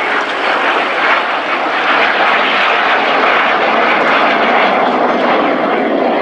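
A pair of BAC Jet Provost T.5 jet trainers flying overhead, their Viper turbojet engines making loud, steady jet noise.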